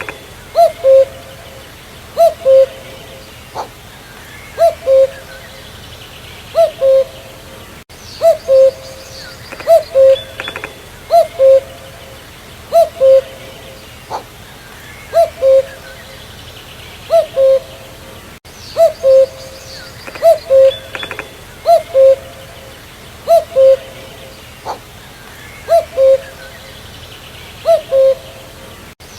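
Common cuckoo (Cuculus canorus) calling its two-note "cuck-oo", a higher note dropping to a lower one, repeated over and over every couple of seconds. Faint chirps of other small birds sit behind it.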